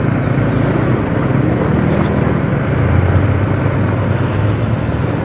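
Motorcycle engine running steadily at low riding speed, a low drone under a constant haze of wind and road noise on the bike-mounted microphone.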